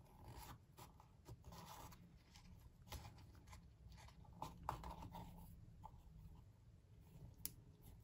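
Faint rustling and light ticking of a paper-card box and linen thread being handled.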